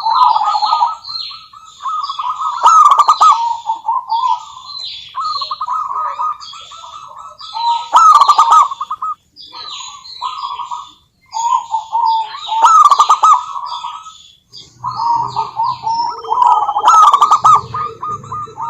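Zebra dove (perkutut) singing: a run of repeated phrases of rapid, rolling coo notes, each lasting a second or three, with short pauses between them and higher chirps over them.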